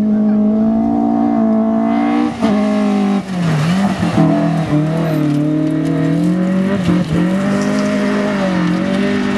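Rally car engine at high revs on a gravel stage, its pitch dipping briefly and climbing back every second or two at gear changes and lifts, over a hiss of gravel spray. The sound jumps abruptly a couple of times between separate passes.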